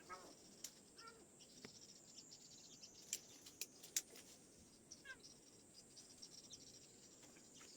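Faint outdoor ambience: insects chirping steadily, with a few sharp clicks around the middle and a couple of faint, short falling calls.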